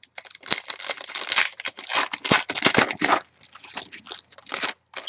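Foil trading-card pack wrapper torn open and crinkled in the hands, a dense crackling and rustling with sharp crackles.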